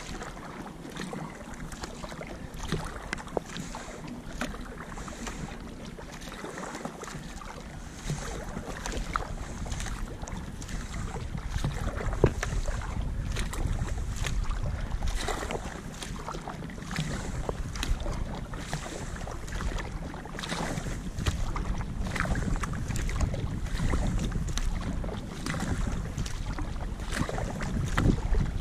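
Kayak paddle strokes splashing into the water in a steady rhythm, with water washing along the narrow hull. Wind rumbles on the microphone and grows louder about eight seconds in.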